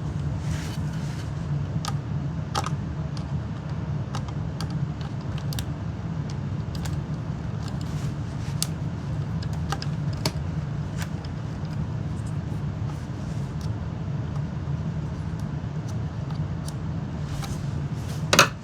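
Scattered light clicks and ticks of a screwdriver and plastic vacuum cleaner parts being handled while screws are taken out, with a louder click near the end, over a steady low hum.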